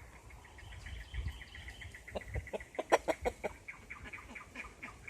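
Chickens clucking: a steady run of quick, short high calls, with a louder burst of clucks about two seconds in.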